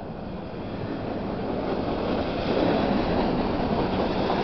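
Double-stack intermodal well cars of a freight train rolling past, their wheels running on the rails in a steady rush that grows louder about two seconds in.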